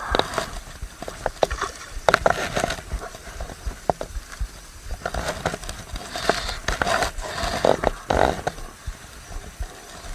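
Irregular clicks, scrapes and short rustling bursts of close handling noise, loudest around two seconds in and again in the second half, as a fish is being brought in.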